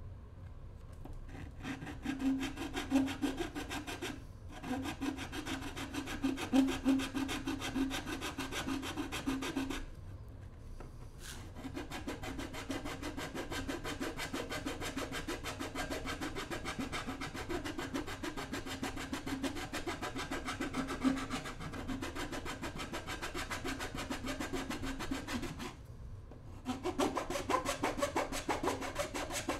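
Metal hand file rasping along the cut edge of a PVC trim board, smoothing out an inside corner. Fast back-and-forth strokes, with a few brief pauses.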